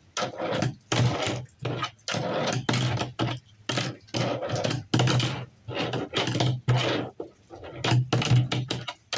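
A man's voice talking in short bursts.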